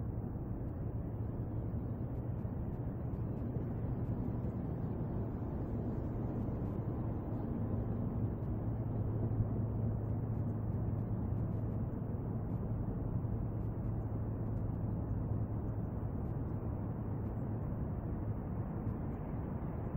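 Steady low rumbling background noise with a faint low hum, unchanging throughout.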